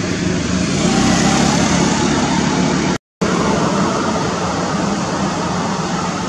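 Steady, loud vehicle noise with a low hum, broken by a brief gap of silence about three seconds in.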